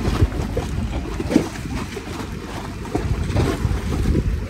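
Wind blowing on the microphone in gusts, over choppy bay water lapping against a dock.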